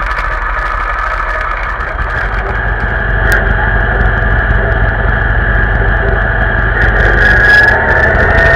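Vintage tractor engine running steadily under way, heard from on board the tractor, getting louder about three seconds in.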